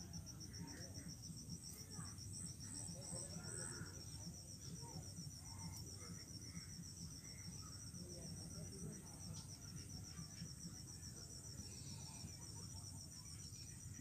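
Insect trill: a high-pitched chirp pulsing rapidly and evenly without a break, over a steady low hum.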